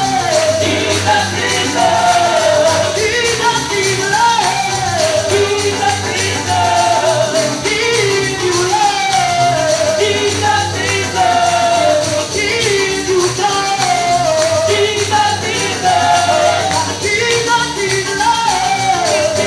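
Gospel worship music in church: a band playing a steady upbeat rhythm, with singing and tambourine.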